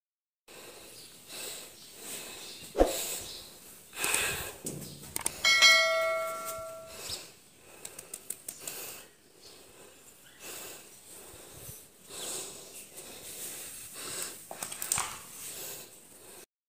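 Footsteps and handling knocks while walking across a tiled rooftop. There is a sharp knock about three seconds in, and a little later a ringing tone that sounds for about a second and a half and fades.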